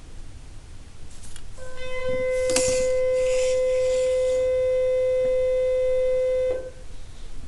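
A single steady pitched tone, held at one pitch for about five seconds, starting about a second and a half in and cutting off suddenly. It comes with faint rustling and a click.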